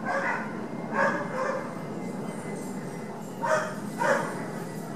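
A dog barking repeatedly in short pairs of barks over a steady background noise.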